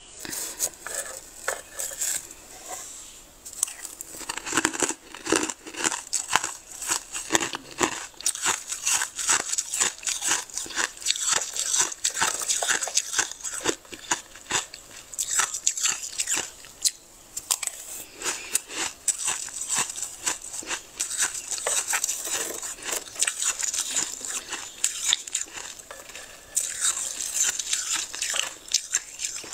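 Metal spoon scraping and scooping thick freezer frost: a dense, continuous run of crisp crunching scrapes.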